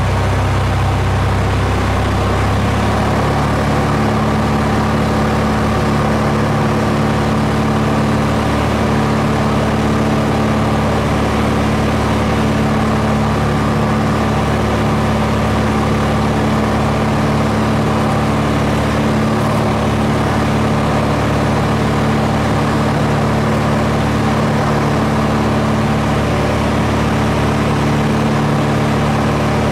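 Aircraft engine and propeller droning steadily, heard from inside the cabin. The engine note shifts once about two and a half seconds in, then holds steady.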